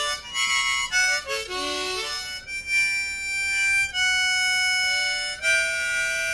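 East Top diatonic harmonica in the key of D, played from a neck holder: a few short notes, one note bent down and back up, then long held notes. It has an accordion-like tone.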